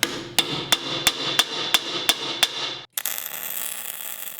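A hammer striking metal in a steady rhythm, about three ringing blows a second. The blows stop suddenly about three seconds in, and a steady hiss follows.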